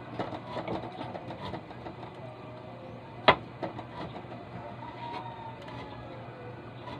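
Kitchen knife slicing ginger on a cutting board: irregular light taps of the blade against the board, with one sharp knock about three seconds in, over a low steady hum.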